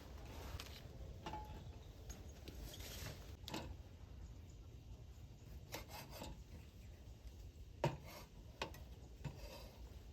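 Scattered light knocks and clicks at irregular intervals, with scraping between them, over a faint low rumble; the sharpest knock comes about eight seconds in.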